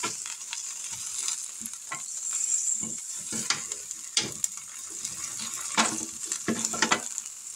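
T-bone steaks sizzling on the hot plate of an electric Foodi indoor grill as they are flipped over mid-cook, with a steady high hiss and scattered clicks and scrapes of a metal fork against the grill pan.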